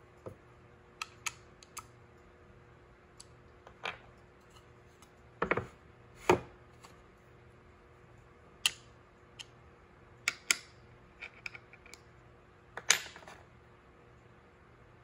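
Irregular sharp clicks and knocks of a wooden shooting board, a metal hand plane and a small steel screwdriver bit being handled and set down on a wooden bench, about a dozen in all. The loudest come about six and thirteen seconds in.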